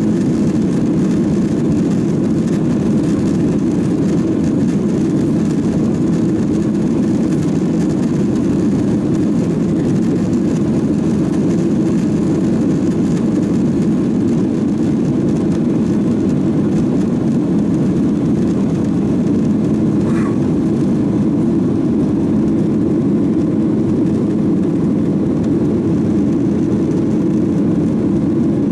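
Boeing 737-800's CFM56-7B jet engines at takeoff thrust, heard inside the cabin as a loud, steady, deep rushing noise through the takeoff roll and lift-off.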